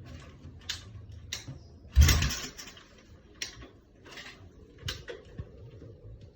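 Motorcycle engine with an aftermarket silencer running low, with a short loud burst about two seconds in and a few lighter puffs and clicks around it.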